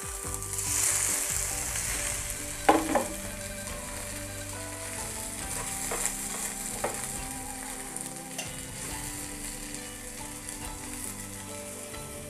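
Egg omelette sandwiches frying in butter in a grill pan, a steady sizzle throughout, with a few sharp knocks, the loudest about three seconds in.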